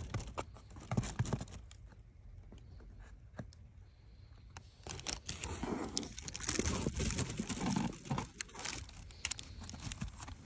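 A calico-mix cat moving about inside a cardboard box, its paws and body scuffing and rustling against the cardboard. There are a few light knocks in the first second or so, then several seconds of dense, scratchy rustling from about the middle.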